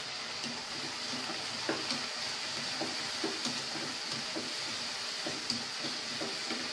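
Onions and freshly added chopped tomato sizzling in oil in a non-stick pan, with repeated soft scrapes of a spatula stirring them from a couple of seconds in.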